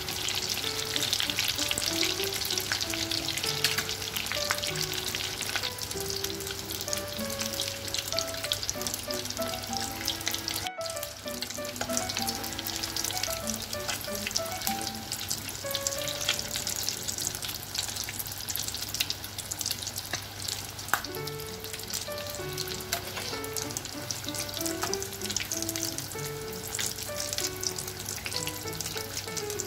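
Breaded chicken drumsticks sizzling and crackling in hot oil in a frying pan, busiest in the first few seconds and thinning as the pieces are lifted out.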